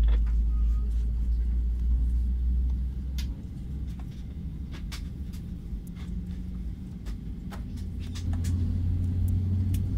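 Airbus A319 cabin noise while taxiing: a steady low rumble from the engines and the wheels, heaviest for the first three seconds and then easing, with a low hum growing stronger near the end. Scattered light clicks and rattles sound over it.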